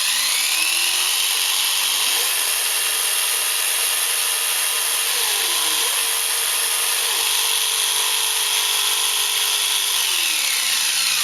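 Handheld jigsaw running with no load: the motor speeds up, holds a steady high whine with the blade clattering, and slows down near the end as it is switched off.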